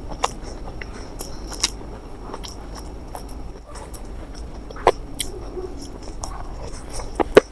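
Close-up eating sounds: chewing and biting, with scattered sharp clicks, the loudest about five seconds in and just before the end.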